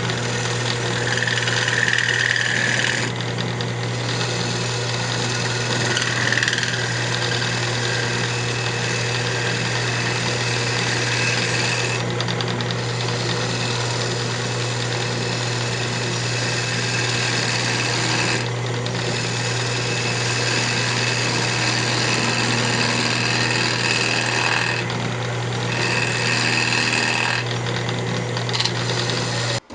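Wood lathe running with a turning tool cutting into a spinning square cherry blank, a steady motor hum under dense cutting noise. The cutting noise changes several times, about 3, 12, 18 and 25 seconds in, as passes start and stop.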